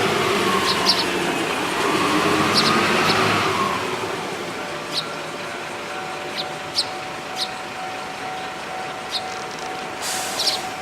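A vehicle passes in the first few seconds, its road noise rising and then fading. Eurasian tree sparrows give short single chirps throughout, about one every second or two.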